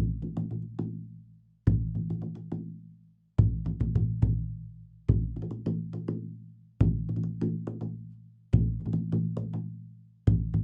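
Large huehuetl drums, hollowed wooden logs with a struck skin head, played in a steady repeating rhythm: a strong stroke about every 1.7 seconds followed by several lighter strokes. Each strong stroke leaves a deep ringing tone that dies away before the next.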